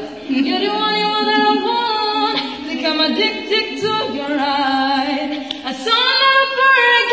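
A young woman singing unaccompanied, one voice holding long notes with slides between them.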